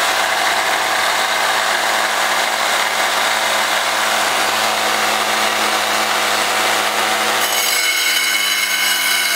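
Wet tile saw's diamond blade grinding through a chunk of silver-and-nickeline ore, its motor running steadily under water spray. Near the end the grinding gives way to a cleaner, steadier whine.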